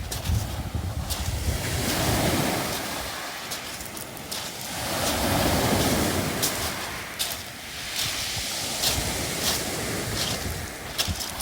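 Waves washing up a beach of smooth round pebbles, the stones clicking and clattering in the wash, with two slow swells of surf and wind buffeting the microphone.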